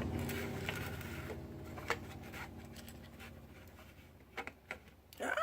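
Light clicks and scratching from small parts being handled on a workbench, over a low steady hum that fades away in the first few seconds.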